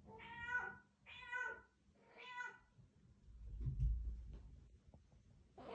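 Scottish Straight cat meowing three times, about a second apart, then a low thump near the middle, and a fourth meow starting at the very end.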